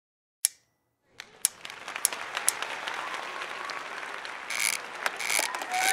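Recorded audience applause for a show intro: a single click, then a second of silence, then clapping that starts about a second in and slowly swells.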